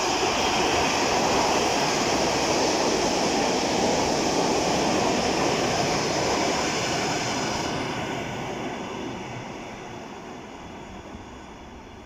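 ED9M electric multiple unit pulling into a station and running past close by: loud, steady rolling noise of its wheels on the rails, which fades away over the last few seconds as the train slows and draws off down the platform.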